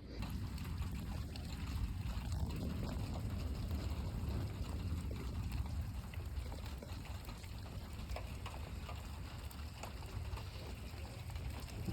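Rain storm: steady rain with running, trickling water and a low rumble underneath, scattered drops ticking through it.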